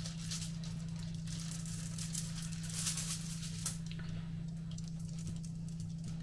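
Hand-turned pepper mill grinding mixed peppercorns: a dry crackling crunch during the first four seconds, densest a little before the middle. It fades out over the last two seconds under a steady low electrical hum.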